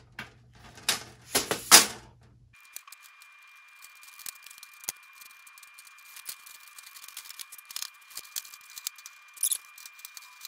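Clear panels and white metal frame of a small IKEA Socker greenhouse clicking and knocking together as the panels are fitted into the frame by hand. A few sharp knocks come in the first two seconds, then lighter scattered clicks over a faint steady hiss.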